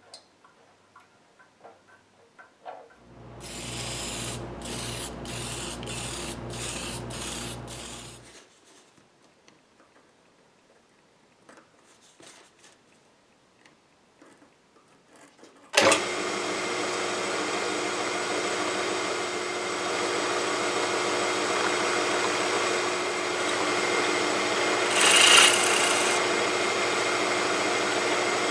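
A drill press motor starts sharply a little past halfway and runs steadily to the end, louder for about a second as the bit cuts into a thin red disc near the end. Earlier, another power tool runs for about five seconds with a hum and a pulsing beat of about two a second, then stops.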